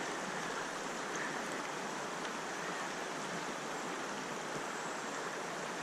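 Steady rush of a fast-flowing river current.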